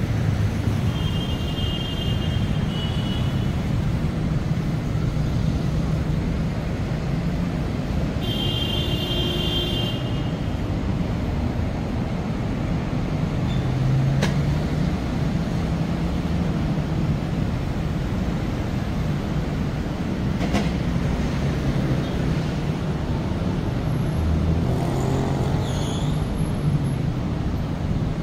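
City street traffic: a steady rumble of passing vehicles, with two short high-pitched squeals, one near the start and one about eight seconds in.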